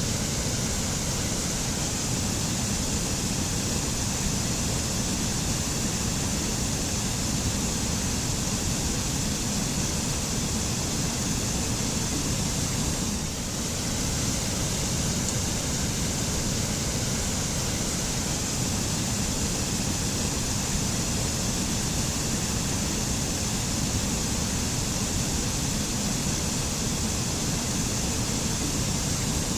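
Waterfall: a steady, unbroken rush of falling water, dipping slightly for a moment about halfway through.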